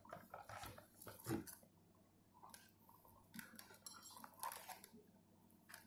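Faint clicks and rustles of an amplifier circuit board and its bundle of wires being handled and turned over in a plastic case, the loudest knock just over a second in.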